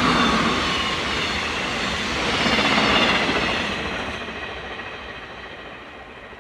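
Train passing on the track: the rush of wheels on rail peaks at the start and again about three seconds in, then fades as the train moves away.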